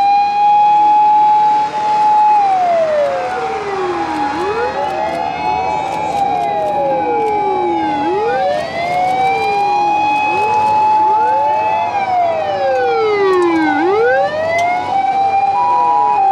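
Several Japanese fire engine sirens wailing out of step with each other, each rising quickly and then falling slowly about every four seconds. Near the end an ambulance's two-tone 'pee-po' siren joins in, stepping between a high and a low note.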